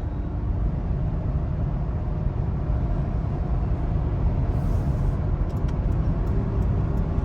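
Steady road and engine noise of a Toyota 4Runner cruising on the highway, heard from inside the cabin, with a few faint light ticks in the second half.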